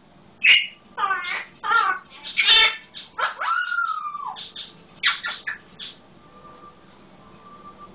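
Male Solomon Island eclectus parrot calling, mimicking a red-lored amazon: four loud squawks, then one long whistle that rises and falls, then a few shorter calls that die away.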